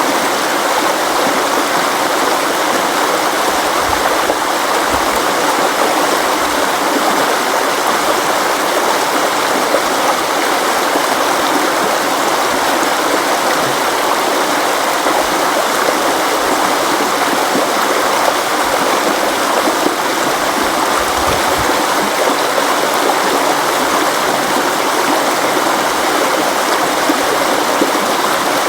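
River water flowing and rushing steadily over rocks, an even, unbroken rush.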